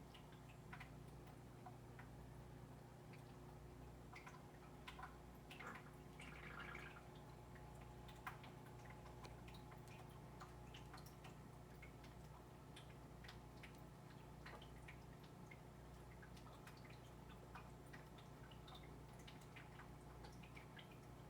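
Faint, near-silent breathing sounds of a turtle with a bad respiratory infection: scattered small clicks and a brief raspy hiss about six and a half seconds in, as it gasps for air, over a low steady hum.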